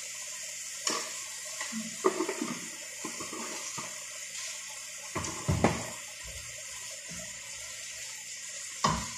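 Minced chicken sizzling steadily as it sautés in a frying pan on a gas burner, with a few knocks and scrapes of a utensil against the pan; the loudest clatter comes about five and a half seconds in.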